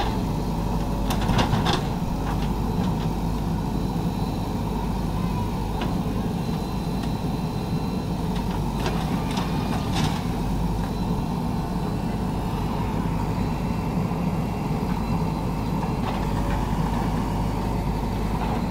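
JCB backhoe loader's diesel engine running steadily while its backhoe bucket breaks down a brick wall. A few sharp knocks and crashes of masonry break through, the loudest about a second in and another just past the middle.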